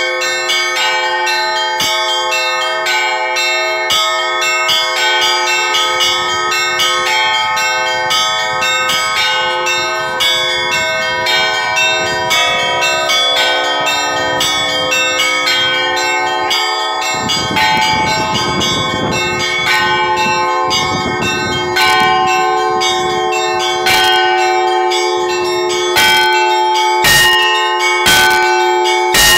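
Church bells ringing together: several bells struck in rapid, overlapping succession, their tones ringing on under each other, with a few louder single strokes standing out in the last few seconds.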